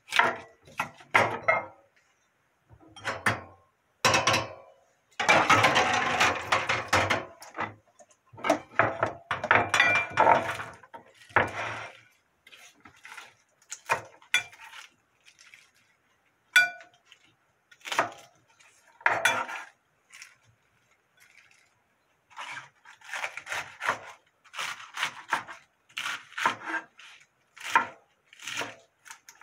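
Kitchen knife cutting a head of iceberg lettuce on a wooden cutting board: irregular knocks of the blade on the board with the crisp crunch of the leaves. About five seconds in there is a longer noisy stretch of rustling and clatter, and the strokes come closer together near the end.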